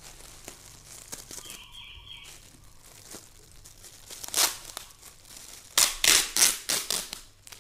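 Thin plastic shopping bag crinkling as it is handled, then torn open: one loud rip a little past halfway and a quick run of loud rips near the end.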